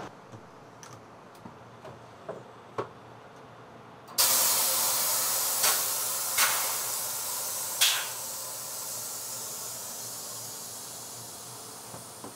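A few light clicks, then about four seconds in a sudden loud hiss of compressed air that flares up three more times and slowly fades away.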